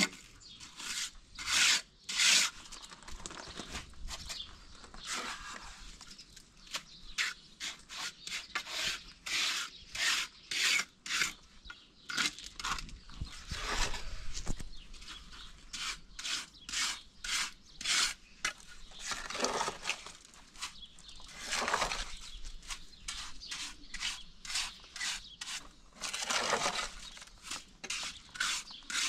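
Hand tool rasping in repeated short strokes, roughly one to two a second, with a few longer, heavier strokes in the second half.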